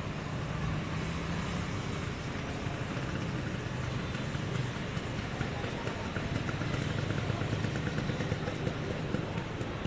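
Steady low hum of background road traffic, with no single event standing out.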